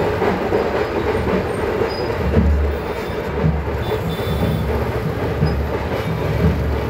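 Busy street din of a crowd and motor scooter and motorbike traffic: a steady rumbling noise, with a deep low rumble that comes and goes from about two seconds in.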